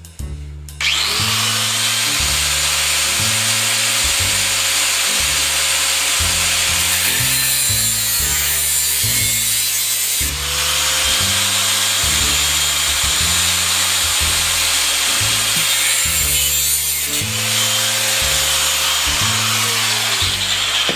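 Power grinder cutting through the metal end of a venetian blind rail: a loud, steady grinding that starts about a second in and eases off briefly twice. A stepped bass line of background music runs underneath.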